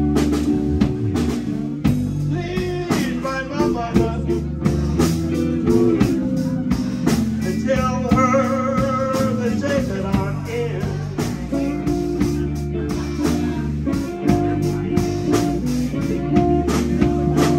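Live blues band playing: electric guitars over electric bass guitar and a drum kit, with a steady beat and a bending lead line in the middle.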